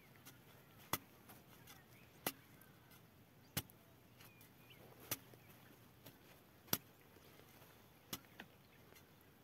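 Small hand hoe chopping into damp soil to dig groundnut planting holes: sharp strikes, about one every second and a half, seven in all.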